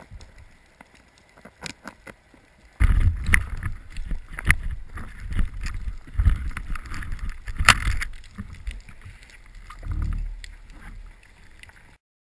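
Underwater handling noise from a camera beside a speargun while a diver works at a snagged fishing net: a muffled low rumble of moving water against the housing, with many sharp clicks and knocks. The rumble comes in loud about three seconds in, swells again near the end, then fades and cuts off.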